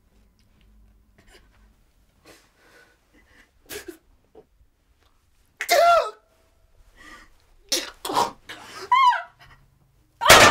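A man sobbing and crying out in anguish: breathy gasps, then strained, wavering cries that grow louder. Near the end comes a single loud gunshot that rings on.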